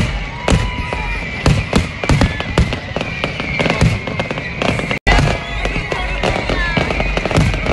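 Fireworks display: a rapid string of bangs and crackling bursts, with whistles gliding up and down over them and a steady high whistle-like tone underneath. The sound cuts out for an instant about five seconds in.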